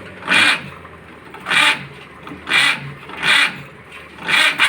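Suzuki F6A three-cylinder engine hard starting, struggling to turn over: five short, rough, noisy bursts about a second apart instead of catching and running. The mechanic puts the hard starting down to the cam timing being set one tooth advanced.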